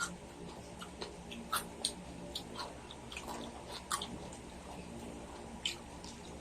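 Close-up chewing and crunching of crispy fried pork belly (lechon kawali): scattered irregular crackles and clicks, a few sharper ones at uneven intervals, over a steady low hum.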